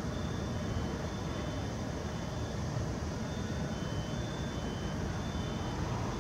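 Boeing 747-8 jetliner flying over on approach, a steady low jet rumble.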